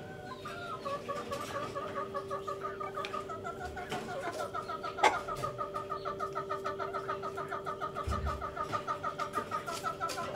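Chicken clucking in a fast, even run of short notes, about five a second, with a steady hum underneath. A single sharp click comes about halfway through.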